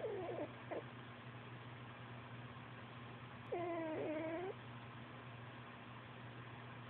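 A cat making squeaky, pitched vocal sounds: a couple of quick ones at the start and one longer call, about a second long, sliding down and back up about halfway through.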